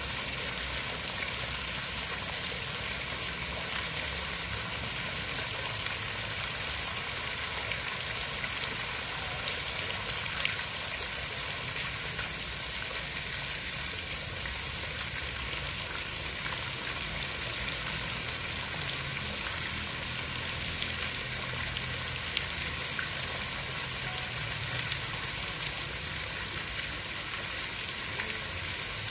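Steady hiss of water, an even wash of noise with a low rumble underneath and a few faint sharp ticks scattered through it.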